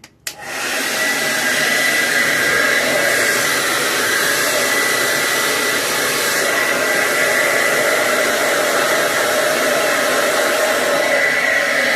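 Conair 1875-watt hand-held hair dryer switched on with a click, spinning up within a second to a steady rush of air with a thin whine.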